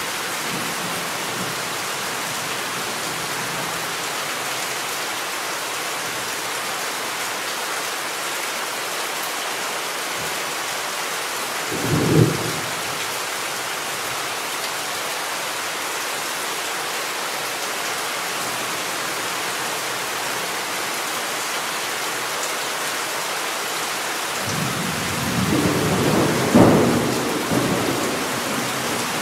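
Steady heavy rain hissing, with a short roll of thunder about twelve seconds in and a longer, louder rumble of thunder building near the end.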